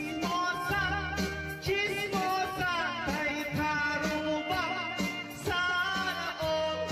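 Background music: a song with a singing voice over an instrumental accompaniment with a bass line and a beat.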